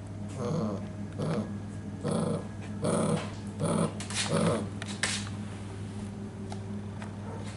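Belgian Malinois puppy growling in a run of short bursts, about seven in four seconds, then stopping. A steady low hum sits underneath.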